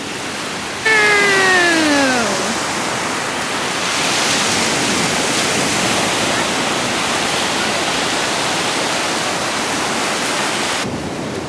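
Ocean surf breaking and washing on a beach, a loud steady rush of waves. About a second in, a voice gives one long cry that falls in pitch.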